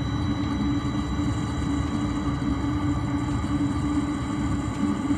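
Webasto diesel-fired engine-coolant pre-heater running steadily after ignition, burning and heating up, its combustion blower and exhaust making a constant low hum. The exhaust silencer has been removed, so it runs louder than standard.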